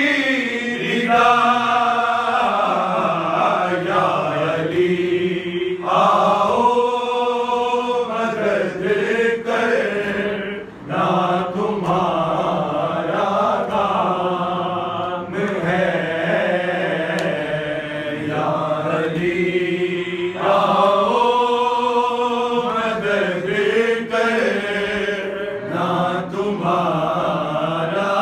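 A noha, a Shia mourning lament, chanted in long, rising and falling melodic phrases.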